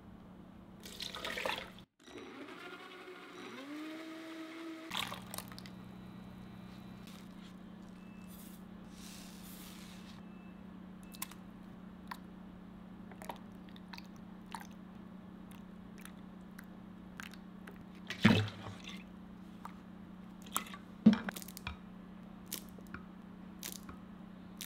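Water poured from a steel measuring cup into a blender jug, its pitch rising as the jug fills. Then sauce ingredients are measured out and poured with soft clicks and taps of bottles, spoons and a bowl, two sharper knocks standing out near the end, over a steady low hum.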